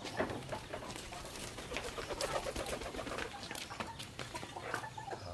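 Chickens clucking and crooning in a wire cage, with many short clicks and knocks mixed in.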